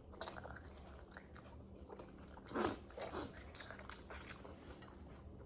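Close-miked eating: chewing and biting food, with small wet smacks and clicks, a few louder ones coming between about two and a half and four and a half seconds in.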